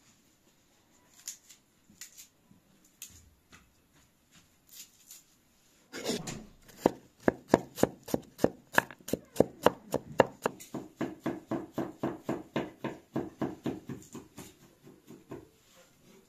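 Chef's knife chopping peeled garlic cloves on a wooden cutting board: a fast, even run of knocks, about four a second, starting about six seconds in and stopping shortly before the end. Before it, a few light clicks of a knife peeling garlic.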